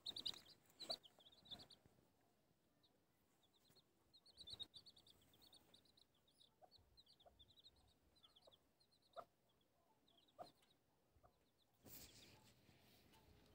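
Young chicks peeping softly beside a brooding hen: quick runs of short, high cheeps, thickest in the first two seconds and again from about four to seven seconds in.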